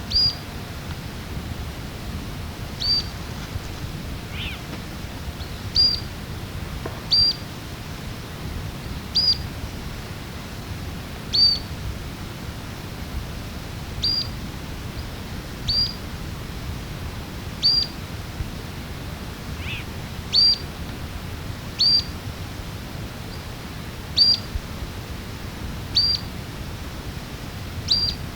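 Mourning sierra finches calling: a short, high, downward-hooked note repeated about every one and a half to two seconds. Two lower calls come in, one a few seconds in and one about two-thirds of the way through.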